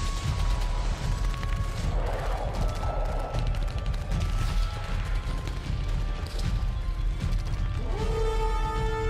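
Soundtrack of dense, rapid mechanical clicking and rattling over a low rumble, mixed with faint background music. About eight seconds in, a new piece of music enters with held tones.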